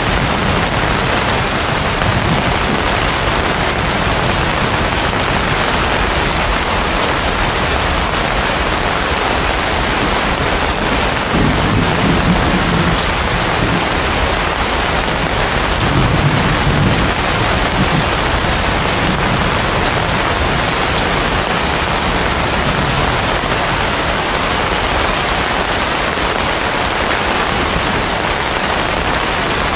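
Heavy rain pouring steadily onto banana and palm leaves, a dense even hiss. Two short low rumbles rise under it, about twelve and sixteen seconds in.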